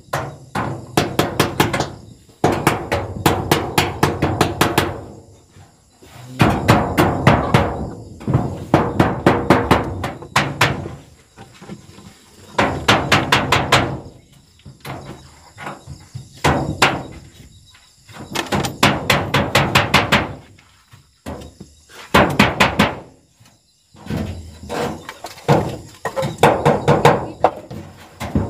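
Hammer driving nails in repeated quick runs of blows, several strikes a second, with short pauses between runs; the blows ring a little.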